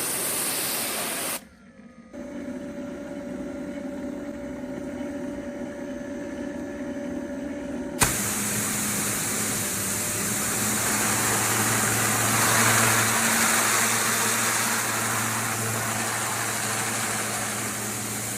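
Pressure washer blasting water through a 15-degree nozzle: a steady hiss of spray with the pump's motor humming underneath. About a second and a half in, the spray cuts off sharply and only a quieter steady hum is left. About 8 seconds in, a click is followed by full spray and motor hum again.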